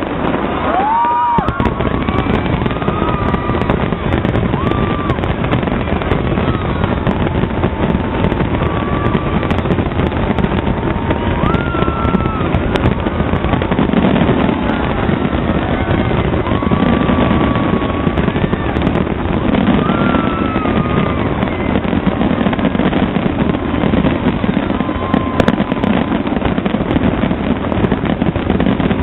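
A fireworks display: continuous rumbling bursts and crackling explosions, with short rising and falling whistle-like tones over them. The level stays steady.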